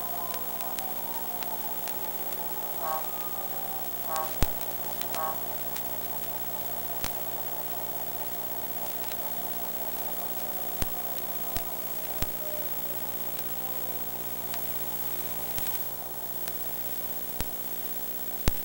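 Steady electrical hum and hiss from a cheap wireless spy camera's radio link, broken by scattered sharp clicks of interference. A faint ringing tone fades away in the first few seconds.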